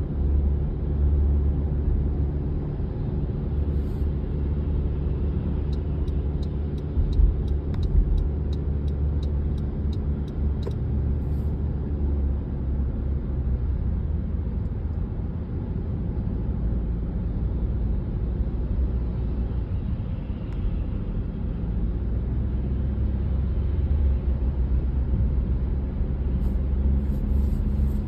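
Car engine and road noise heard from inside the cabin while driving uphill, a steady low rumble. About six seconds in, a run of light, evenly spaced clicks comes at roughly two to three a second for about five seconds.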